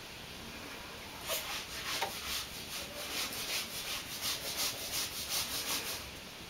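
A cat pawing in a wooden dresser drawer and dragging out a sock, its paw and claws scraping and rustling: a quick series of scratchy strokes that starts about a second in and stops shortly before the end.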